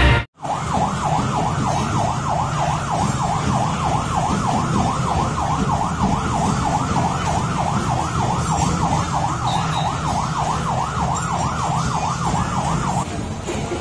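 Police escort vehicle siren in a fast yelp, its pitch sweeping up and down about three times a second, stopping about a second before the end, over a low steady rumble.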